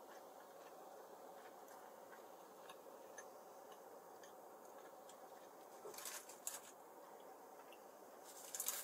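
Near silence with faint scattered ticks, then two short crackly rustles, one about six seconds in and one just before the end.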